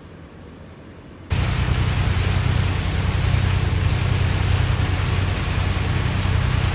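Steady, loud rushing noise of a vehicle driving in rain, with a heavy low road rumble; it starts abruptly about a second in, after a faint low hum.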